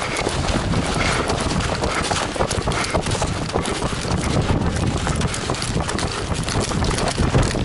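Running footsteps crunching on gravel, heard as a quick, uneven patter over a low wind rumble on the microphone.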